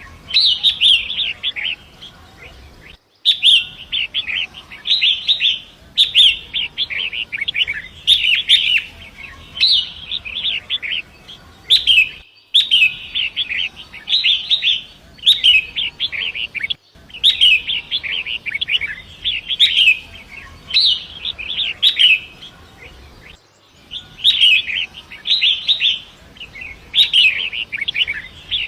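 Long-tailed shrike singing: fast, scratchy chattering phrases about a second long, repeated with short pauses. The song drops out completely for a moment four times, where the recording is spliced.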